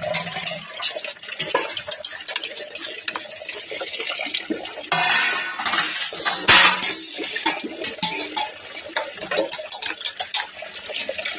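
Stainless-steel plates, bowls and tumblers clinking and clanging as they are washed and stacked by hand, with a brief rush of splashing water about five seconds in and one loud clang just after it.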